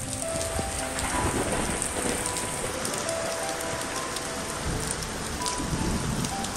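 Heavy rain pouring onto wet pavement, a steady dense hiss, with low rumbles of thunder swelling under it in the second half.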